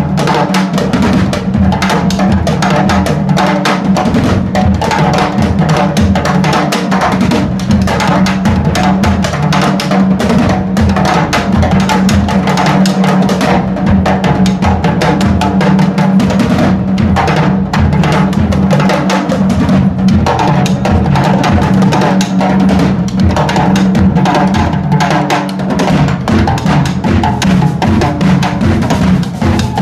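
Several drummers playing a fast, busy pattern with sticks on a drum kit, toms and metal-shelled drums, over a steady held low note.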